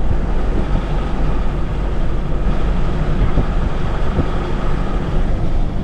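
Steady noise of a vehicle travelling along a road: engine, tyre and wind noise with no change in pace.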